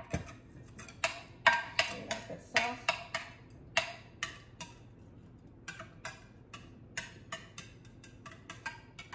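A serving spoon tapping and scraping against a glass baking dish and a metal mixing bowl while spreading tomato sauce: a run of sharp, irregular clicks, a few a second, louder in the first few seconds.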